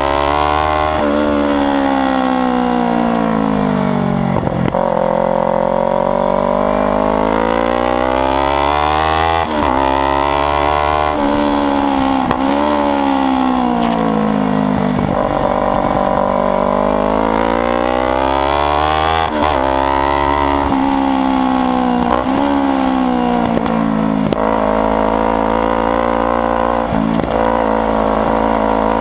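Kawasaki Ninja 300's parallel-twin engine, loud and ridden hard, revving up through the gears. The pitch climbs, then drops sharply at each shift and glides down under braking, over and over.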